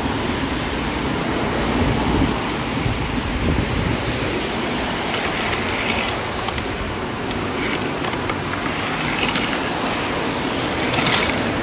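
Floodwater draining into a clogged street storm drain, stirred with a pole through leaves and debris, over the steady noise of heavy rain. The drain is running far too slow, which the clearer suspects is an internal clog or a pipe overwhelmed by the other drains.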